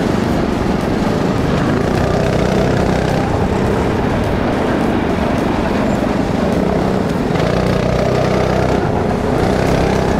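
Go-kart engine running in a steady drone, with small shifts in pitch.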